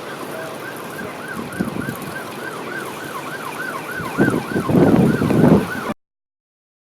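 A siren sounding a fast up-and-down yelp, about three sweeps a second. A loud rush of wind over the microphone comes in over it about four seconds in, and all sound cuts off abruptly about six seconds in.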